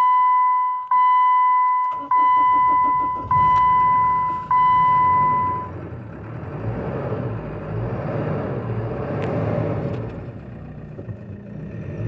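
Jeep Wrangler's 2.8 four-cylinder common-rail diesel cranking and catching on starting fluid sprayed into the airbox, then idling steadily. It had been a crank-no-start after sitting about a year, which the mechanic puts down to fuel rather than glow plugs. A dashboard warning chime sounds five times over the start, louder than the engine.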